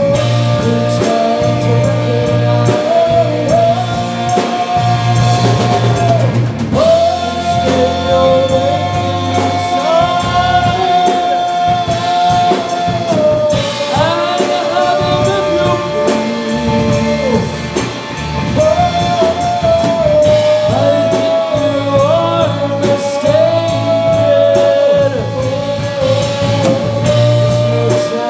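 Live rock band playing: electric guitars and a drum kit under singing with long held notes.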